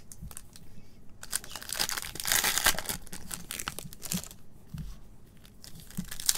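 Foil wrappers of Topps Allen & Ginter Chrome trading card packs crinkling and tearing as they are opened by hand, busiest about two seconds in.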